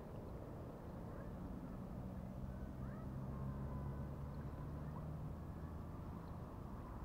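A low engine hum swells about two seconds in and fades again near the end, over a steady background rush.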